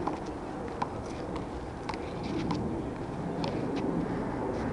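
Handball rally on a one-wall court: about half a dozen sharp smacks of a hand striking the rubber ball and the ball hitting the concrete wall and pavement, the loudest about a second in, over steady background noise.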